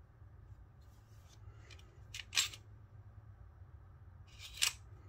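Smith & Wesson M&P9 Shield EZ pistol being worked by hand: two sharp metallic clacks of its slide and action about two seconds apart, each led in by a short scrape, with a few lighter clicks between.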